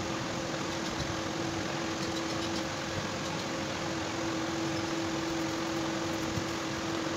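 Steady hum and hiss of a running machine, with a constant low tone.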